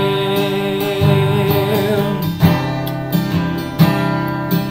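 Strummed acoustic guitar accompanying a man's singing voice. He holds one sung note with vibrato for about the first two seconds, then the guitar carries on alone with a few accented strums.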